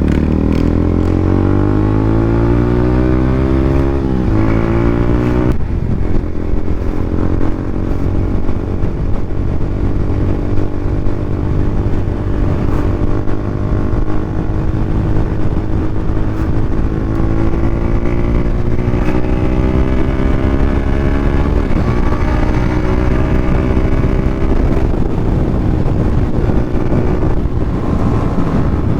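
Yamaha Sniper 150's single-cylinder four-stroke engine running through an open EXOS R6 exhaust with no silencer. The pitch climbs under throttle, then drops suddenly a few times, like gear changes, with steady running in between.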